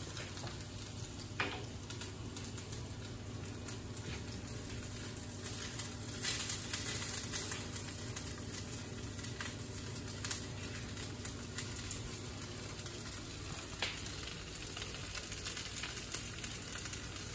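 Russet potato pieces sizzling in grapeseed oil in a hot sauté pan: a steady frying hiss with a few sharper crackles, as the potatoes brown and caramelize.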